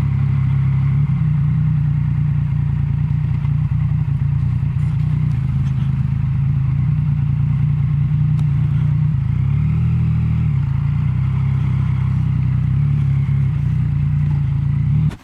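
Yamaha Tracer motorcycle engine running steadily at low revs, then shut off suddenly near the end.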